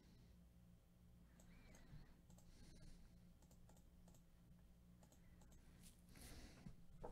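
Near silence with faint, scattered computer mouse and keyboard clicks over a low steady hum.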